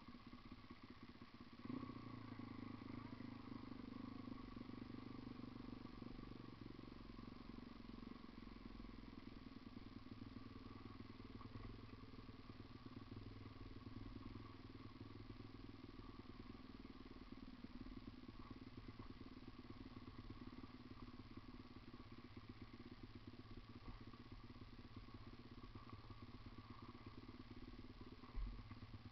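Faint dirt bike engine running steadily, growing louder about two seconds in, with a single knock near the end.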